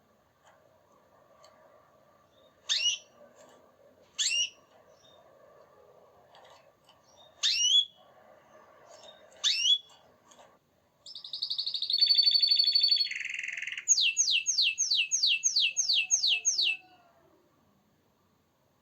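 Canary singing: four separate quick rising chirps, then a fast rolling trill and a run of about ten quick sweeping notes that stops near the end.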